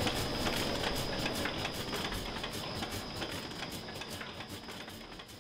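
Rhythmic mechanical clicking, about five clicks a second, with a thin steady high whine, fading out gradually.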